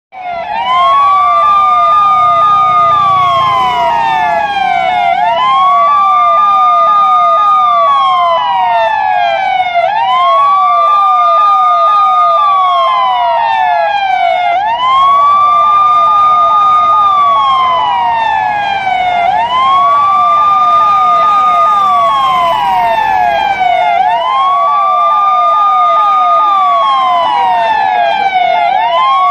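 Police car siren in a wail pattern. The tone rises quickly, holds at the top for a couple of seconds, then slides slowly back down, repeating about every four and a half seconds, with a quicker run of short falling sweeps beneath it.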